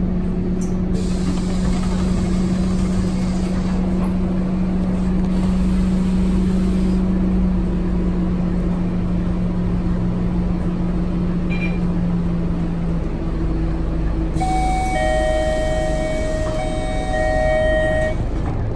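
Scania K230UB city bus's five-cylinder diesel idling at a stop, heard from inside the cabin as a steady low hum. Near the end, a few steady high tones sound for several seconds as the front door closes.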